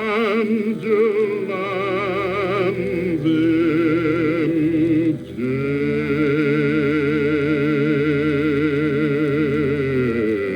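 Operatic male bass-baritone voice singing with wide vibrato over an orchestra, played from a 78 rpm record on a suitcase record player through a small Bluetooth speaker. A few short phrases, then one long held note from about halfway through to near the end.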